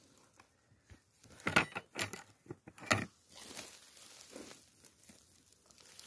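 Rustling and crackling close to the microphone, with a few sharp snaps and cracks between about one and a half and three seconds in: someone moving and picking through dry forest floor litter.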